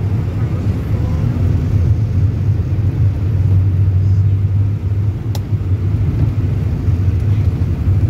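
Steady low rumble of a road vehicle driving, engine and road noise heard from inside the vehicle, with a brief faint click about five seconds in.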